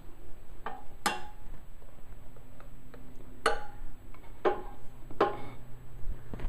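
A handful of light, irregular metallic clicks and taps, some with a short ring after them, from the metal chimney and wick carrier of an Aladdin Blue Flame 37 kerosene heater being handled as a new wick is worked into place.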